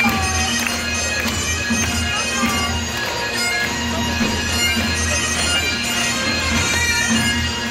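Bagpipe music: steady drones holding under a chanter melody.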